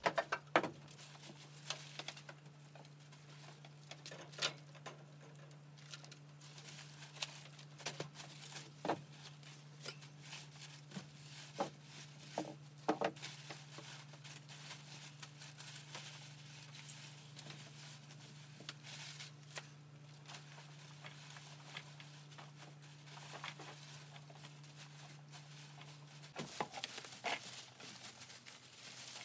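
Groceries being handled and set out on a table: plastic bags rustling and items knocked down, as faint scattered clicks and rustles. A steady low hum runs beneath and stops a few seconds before the end.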